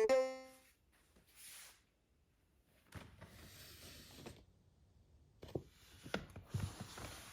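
The last note of a music track dies away; then a quiet room with faint rustling and a few soft clicks, like small objects being handled.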